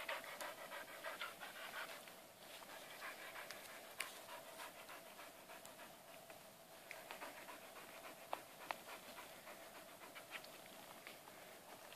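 A dog panting quickly and rhythmically, the panting growing fainter. A few sharp clicks come through about four seconds in and again near nine seconds.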